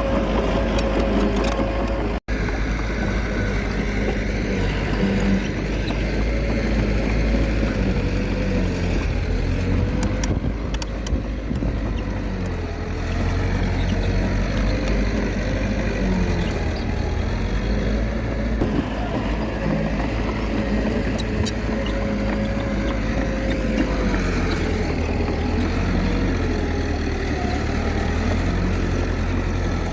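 Diesel engine of a Komatsu D21A mini bulldozer running under varying load, its note rising and falling as it pushes. The sound cuts out for an instant about two seconds in.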